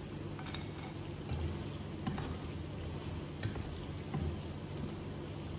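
Potato fries sizzling steadily in hot oil in a frying pan, with a few light clicks and knocks as wooden chopsticks lift fries out of the oil.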